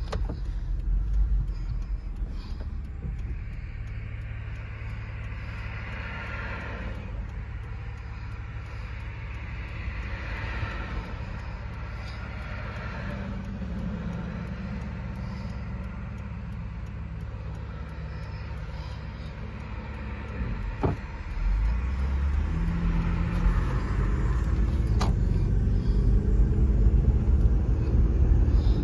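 Car engine idling, heard from inside the cabin, with passing traffic swelling and fading now and then. About three-quarters of the way through, the car pulls away: engine and road noise grow louder and the engine note climbs as it speeds up.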